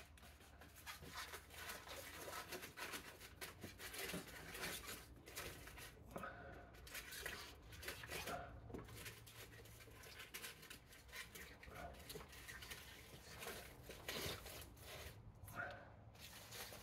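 Faint crinkling of aluminium foil and light, irregular clicks and scrapes of a wire grill against a plastic tub as it is pressed into place by hand.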